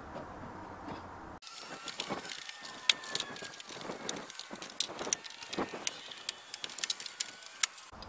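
Blue plastic trim removal tool prying at a van's rear-door trim, giving a run of sharp, irregular plastic clicks and light crackles. The clicks start abruptly about a second and a half in and stop just before the end.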